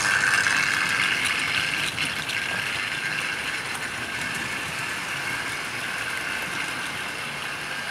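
Several 00 gauge model trains running on their track: a steady whirring of the motors with rattling wheels. It is loudest at the start and fades slowly as the trains move away.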